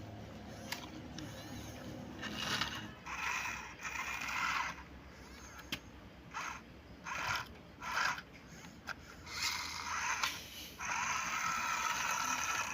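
Small toy gear mechanism whirring in about nine short bursts. Some bursts last well under half a second, and the longest run for one to two seconds near the end.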